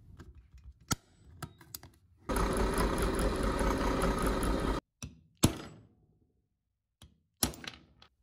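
Drill press running for about two and a half seconds as a small bit drills out the rivet holding the crank handle on a vintage Stanley egg beater drill, cutting off suddenly. Sharp metallic clicks and knocks from handling the drill's parts come before and after, the loudest about halfway through.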